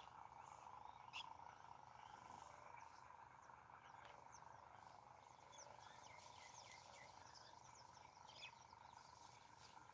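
Near silence, with scattered faint, short high chirps and a faint steady hum.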